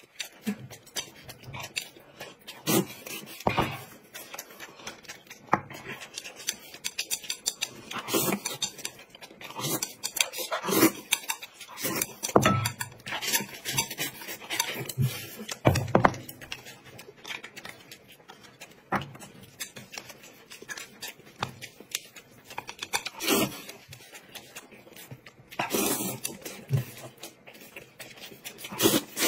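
Close-miked eating sounds: irregular chewing and mouth smacks, with clinks of chopsticks or cutlery against dishes.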